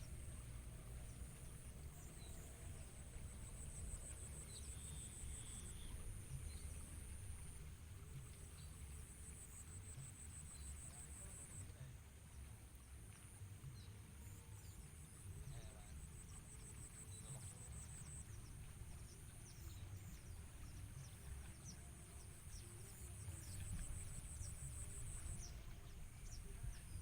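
A high, finely pulsing insect trill that comes and goes in long bouts over a steady low rumble, with faint short chirps scattered through it.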